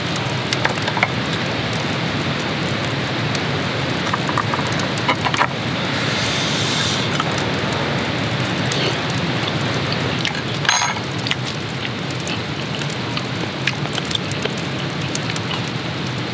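Heavy rain falling steadily, an even rushing hiss, with a few light clicks and a brief clink about eleven seconds in.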